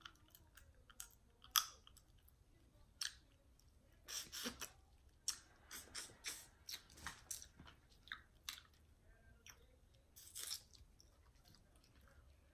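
Close-miked eating of a seafood boil: wet chewing broken by scattered sharp clicks and cracks of shellfish shells being handled and bitten, in small clusters.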